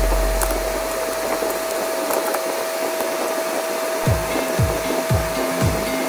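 Steady rushing hiss with a constant thin hum underneath. About four seconds in, a background-music beat of low kick-drum thumps comes in, about two a second.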